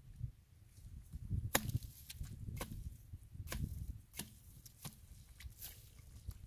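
A metal pipe jabbed into a mud and clay bank: about six sharp knocks, roughly one a second.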